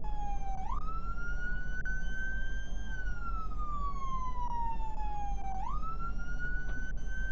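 Police car siren on a wail: a long, slow downward glide in pitch that jumps quickly back up, twice, over a steady low hum.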